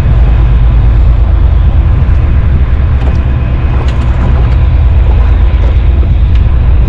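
Wind buffeting the microphone: a loud, steady low rumble that flickers rapidly in level.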